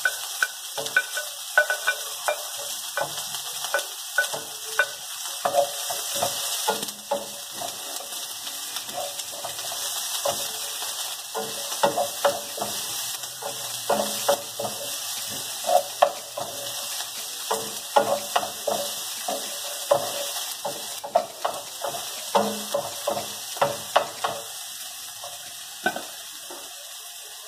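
Chopped onion, garlic and green chili sizzling in hot oil in a frying pan. A wooden spoon stirs them, knocking and scraping against the pan over and over. The sizzle eases somewhat after the first several seconds.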